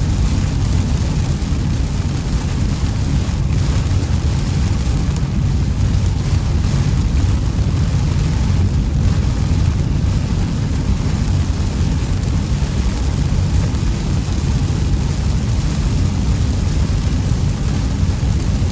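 A car driving on rain-soaked roads: a steady low rumble of road and tyre noise with rain hissing over it.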